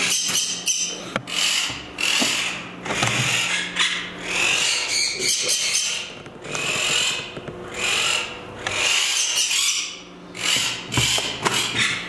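Green-cheeked conures giving harsh, rasping squawks, one after another about once a second.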